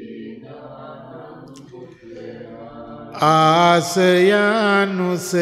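Pali Buddhist chanting: softer, steady chanting for about three seconds, then a monk's voice close to the microphone comes in loudly with a melodic chanted line of held, gliding notes.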